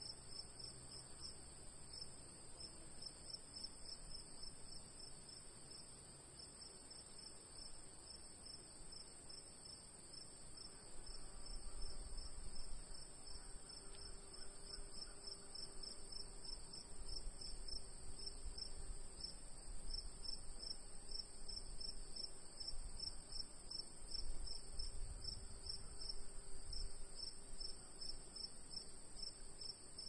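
Afternoon crickets chirping in a steady chorus: one high, continuous trill and a second, lower chirp pulsing rapidly. Beneath them runs a low rumble that grows louder about a third of the way in.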